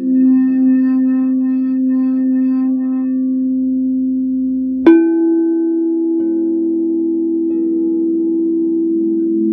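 Crystal singing bowls ringing in a steady, sustained hum with overtones. About halfway through, a bowl is struck sharply and rings on at a higher, louder pitch.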